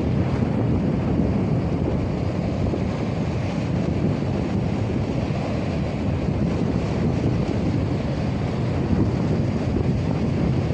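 Strong wind, about 9 m/s and enough to drive sand across the surface in a sandstorm, buffeting a smartphone microphone: a steady, heavy low rumble of wind noise with no let-up.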